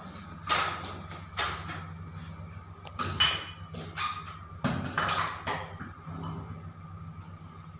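A string of irregular knocks and clacks, about eight short hits over the first six seconds, over a steady low hum.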